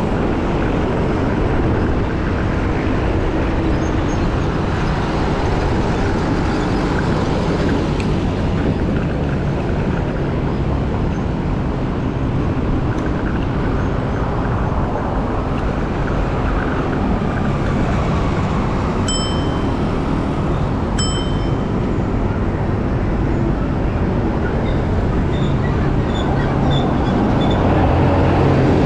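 Steady rumble of traffic and wind noise on the microphone while riding an electric scooter in city traffic. Two short high dings, about two seconds apart, come about two-thirds of the way through.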